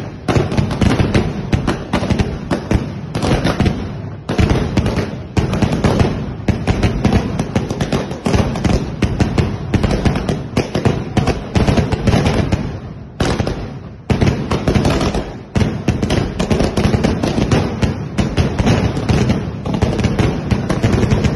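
Fireworks going off from the ground in a continuous rapid barrage of bangs and crackles, shot after shot sent up into the sky, with brief lulls about four and thirteen seconds in.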